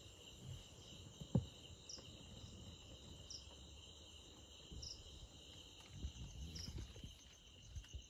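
Night insects trilling steadily and faintly, with a short higher chirp repeating about every one and a half seconds. A light knock comes about a second and a half in.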